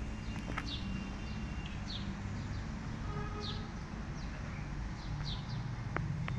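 Small birds chirping, short high chirps that dip in pitch, repeating about once a second over a steady low outdoor rumble.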